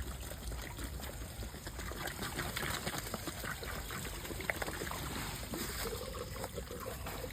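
Water pouring and splashing steadily out of a removed deep-well expansion tank as it drains a large load of water.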